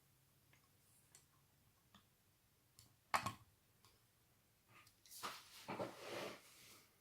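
A quiet room with a few faint clicks, a sharper click about three seconds in, and a couple of seconds of soft rustling and clicking near the end.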